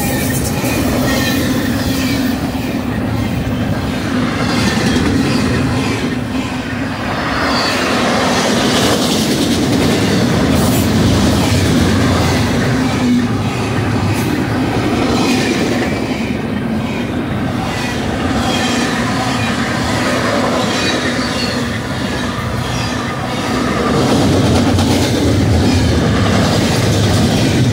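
Double-stack intermodal well cars rolling past at close range: steady, loud wheel-on-rail rumble, with faint high-pitched wheel squeal ringing over it.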